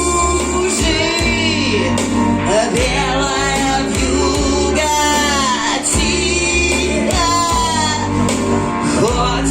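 A woman singing a sustained, gliding melody with vibrato over a steady instrumental accompaniment.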